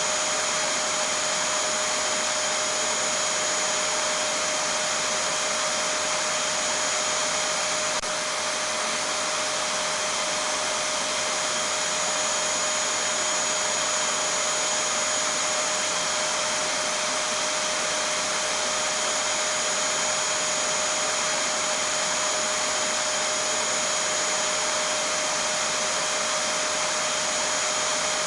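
Vacuum cleaner running steadily: an even rush of air with constant whining tones over it, unchanging throughout.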